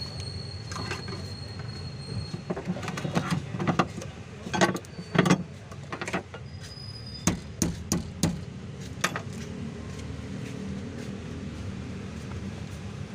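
Scattered metallic knocks and clicks of tools and parts being handled during a fuel-pump repair, loudest in the middle, over a steady low rumble.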